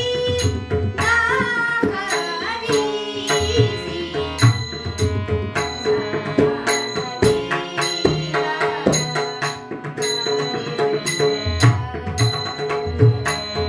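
A girl's voice singing a Marathi abhang, a devotional song, accompanied by a harmonium's held reed chords and the strokes of a pakhawaj barrel drum.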